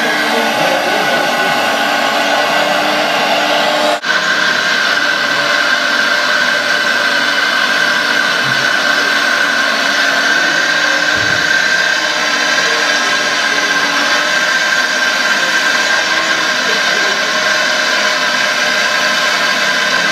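Radio-controlled scale hydraulic excavator (Liebherr 960 model) working, its electric hydraulic pump whining steadily as the boom and bucket move. The sound drops out for an instant about four seconds in, and the whine is steadier afterwards.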